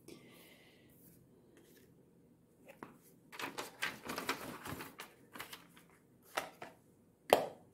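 Makeup palettes and their cardboard box being handled: a burst of crinkling as the translucent protective sheet inside the box is lifted, then a few separate sharp clicks and taps, the loudest near the end.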